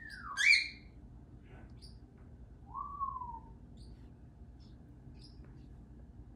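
Pet parrot whistling: a falling note straight into a loud rising whistle, then about three seconds in a softer whistle that rises and falls. Short high chirps come through between the whistles.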